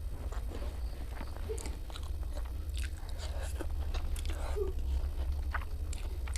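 A person eating close to the microphone: chewing and biting food, with many short scattered clicks and crunches. A steady low hum runs underneath.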